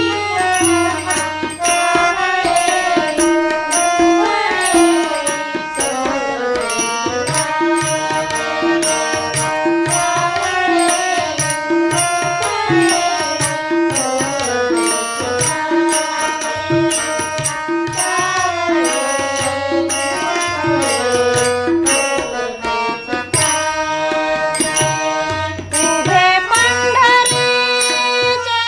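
Marathi devotional abhang music in an instrumental passage: a melodic lead that glides up and down over a steady, evenly repeating percussion rhythm.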